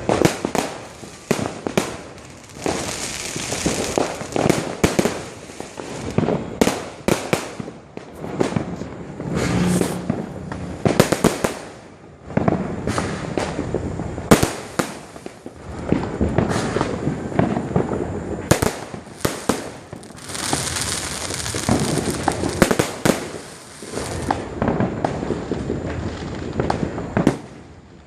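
New Year fireworks going off: many sharp bangs, irregular and overlapping, with bursts of crackling between them.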